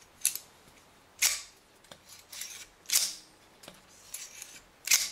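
Safety wire pliers twisting safety wire on the oil pump sprocket nut: about five short, hissy metallic pulls, a little over a second apart, as the twist is wound tight.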